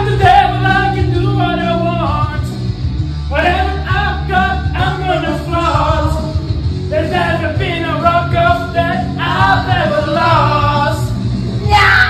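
A man singing a rock song into a karaoke microphone over a loud rock backing track, in phrases broken by short pauses. A short loud burst comes near the end.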